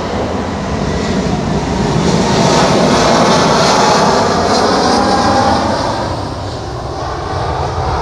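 Boeing 777-300ER's twin GE90-115B turbofans at takeoff thrust during the takeoff roll: a loud, steady rush of jet noise that swells to its loudest in the middle and eases a little near the end.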